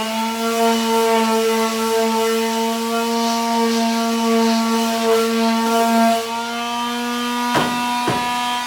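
Electric sander running with a steady hum as it sands the edges of a wooden skateboard deck. About six seconds in, its pitch rises slightly and it gets a little quieter. Two sharp knocks come near the end.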